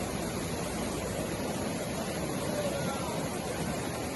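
Steady rushing of a flooded stream in spate, a continuous even roar of water, with faint voices in the background.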